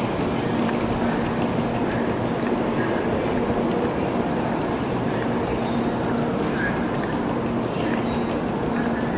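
Shinkansen train moving at low speed along the platform: a steady rush of running noise with a high, thin whine that breaks off about six seconds in and comes back a second and a half later.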